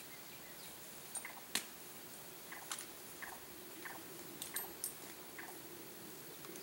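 Faint handling of saddle tack at a horse's side: scattered light clicks of buckles or hardware, and several short squeaks that fall in pitch, such as leather straps make when pulled through.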